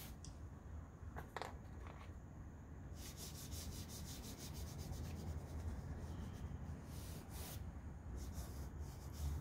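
Pastel stick scratching across drawing paper: a few separate strokes, then from about three seconds in a quick run of short back-and-forth hatching strokes.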